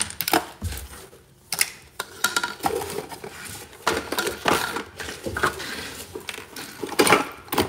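Small plastic toy pieces clattering and knocking together in a run of quick, irregular clicks as toys are gathered up and put away.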